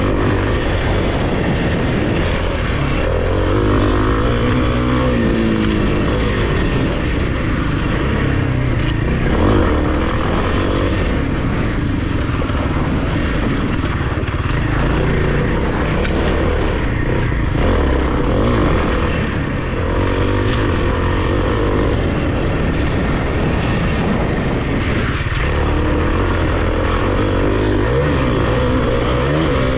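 Kawasaki KLX300's single-cylinder four-stroke engine running under way on a dirt trail, its revs rising and falling with the throttle, briefly easing off about two-thirds of the way in.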